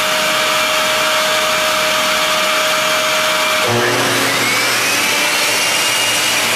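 DeWalt compound miter saw running and crosscutting cherry face-frame stock to length, with a dust-collection vacuum running on its hose: loud, steady machine noise. A little over halfway through, the pitch changes and a whine rises.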